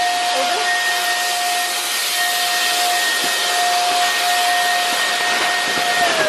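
Vacuum cleaner motor running steadily: a loud airy hiss with a high whine. Near the end it is switched off and the whine falls in pitch as the motor winds down.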